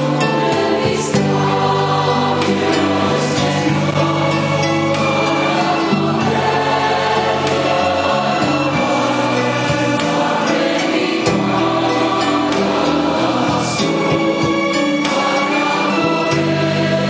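A choir singing sacred music during Mass, sustained and even throughout.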